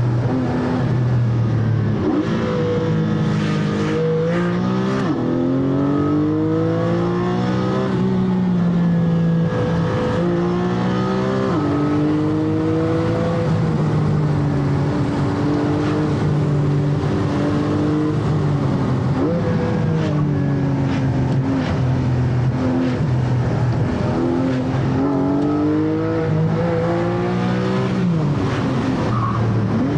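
Porsche Cayman GT4's naturally aspirated flat-six engine being driven hard on a winding downhill road, its note repeatedly climbing and falling as it is worked up and down through the gears.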